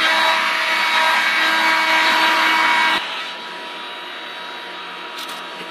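A small electric motor running with a rushing blower noise and a steady multi-toned whine. About three seconds in it becomes much quieter, then cuts off abruptly.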